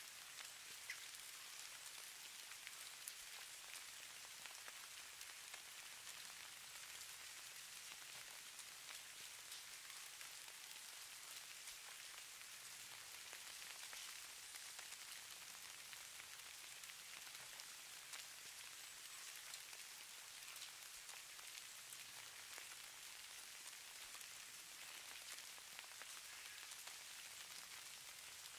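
Faint, steady patter of falling precipitation on a surface, presented as falling snow: a soft hiss strongest in the highs, sprinkled with many fine ticks.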